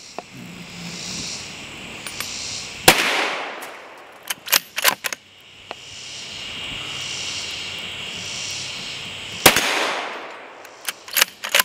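Two rifle shots about six and a half seconds apart, each with a long echoing tail, each followed a second or two later by a few sharp clicks. Insects drone steadily in the background between the shots.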